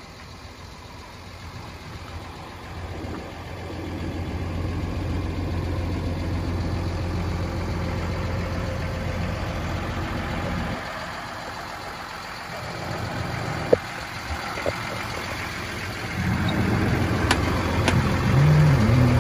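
Low, steady rumble of an idling engine. It drops away for a few seconds midway, then comes back, followed by a few sharp clicks near the end as a cab door is opened.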